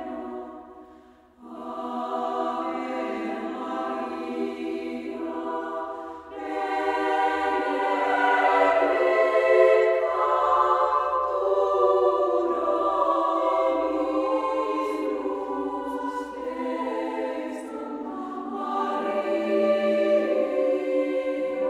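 Choir singing a slow, hymn-like piece in sustained chords, with a short break about a second in and another about six seconds in.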